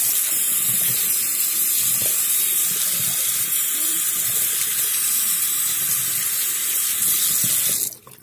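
Tap water running steadily into a sink, splashing over a cut-open plastic coffee pod and rinsing grounds toward the drain. The flow stops abruptly near the end.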